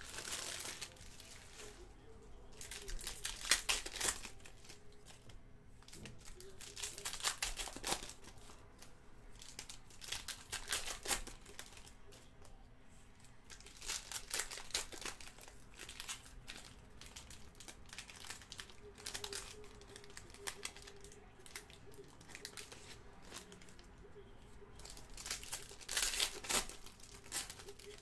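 Foil wrappers of 2018-19 Panini Select Basketball card packs being torn open and crinkled by hand, in bursts of crackling every few seconds.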